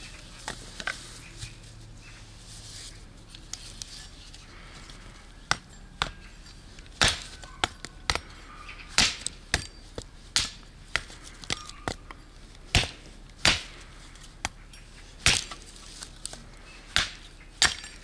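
Repeated sharp chopping blows. A few light knocks come first, then from about five seconds in, strong strikes land irregularly, roughly one every half second to second and a half.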